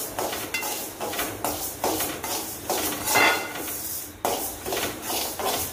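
Perforated steel ladle scraping and clinking against a metal kadai as flaxseed is stirred while dry-roasting, in irregular strokes.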